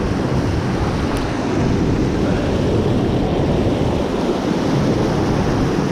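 Whitewater of the Potomac River rapids rushing steadily and loudly over the rocks.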